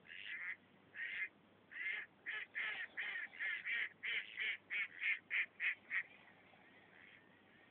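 Ducks quacking: a few single quacks, then a fast run of about a dozen loud quacks, roughly three a second, that stops about six seconds in.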